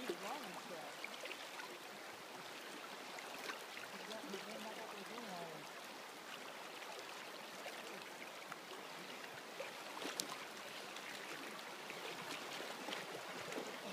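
Kenai River current rushing steadily, an even wash of moving water, with faint distant voices a few seconds in.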